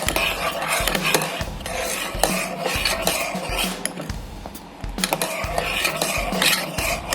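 A spoon stirring a thickening pot of raab (flour porridge boiled with jaggery), scraping and clinking against the pan in repeated strokes.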